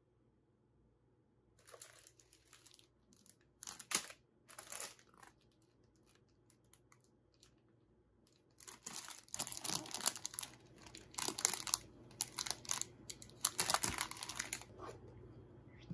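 Plastic packaging bag of a magic-sponge set crinkling as it is picked up and handled: a few short rustles in the first five seconds, then near-continuous crinkling from about halfway through.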